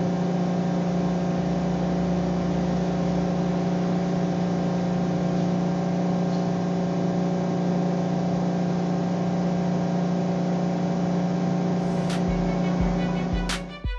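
Electric polisher motor running steadily at one constant speed, a loud even hum. It cuts off shortly before the end as violin music comes in.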